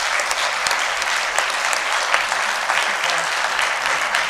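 Audience applauding: many hands clapping together in a dense, steady spell of applause.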